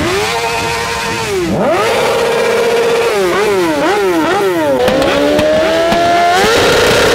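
Sportbike engine being revved hard. It holds a rev, dips and climbs, then gives a quick run of throttle blips. After a slow climb it jumps to a steady high rev near the end, as the rear tyre is spun in a smoky burnout.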